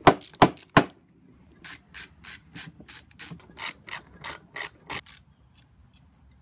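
Socket ratchet wrench working the side-cover nut of a chainsaw: three loud clicks, then about a dozen short ratcheting clicks, roughly three a second, stopping about five seconds in.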